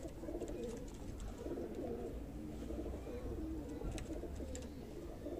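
Domestic pigeons cooing: low, wavering coos repeated with short breaks.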